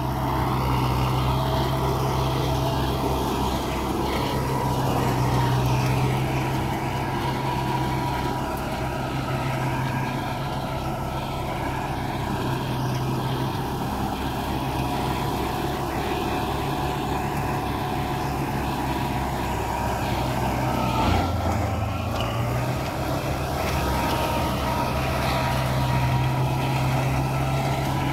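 Universal 640V tractor's diesel engine running steadily under load while driving a flail mower, with a thin steady whine above the engine note. About three-quarters of the way through, the engine note briefly drops and then recovers.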